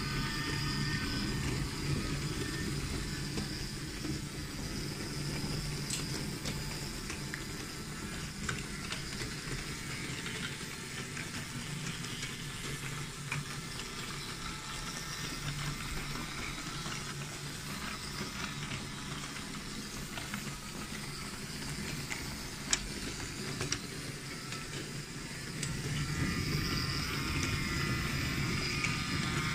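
Battery-powered Brio toy trains running on wooden track: a steady whirring of small electric motors with the rumble of wheels, and a few scattered light clicks. It grows a little louder near the end.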